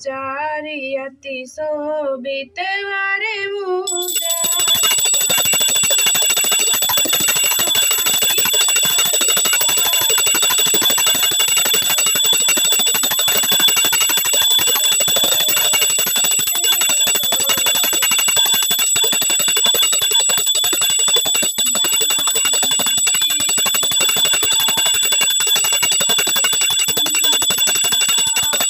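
A puja hand bell rung rapidly and without pause during aarti, a dense metallic jangle with steady high ringing overtones, starting about four seconds in. Before the bell begins, a woman's voice is heard singing.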